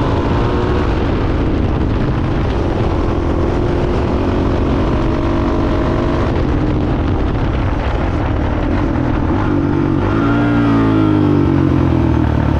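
Yamaha Raptor 660R quad's single-cylinder four-stroke engine running continuously without cutting out. The revs dip and then pick up again near the end.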